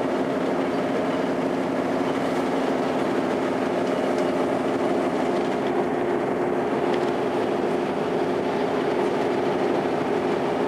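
Tour boat's engine running steadily under way, a constant even hum with water rush beneath it.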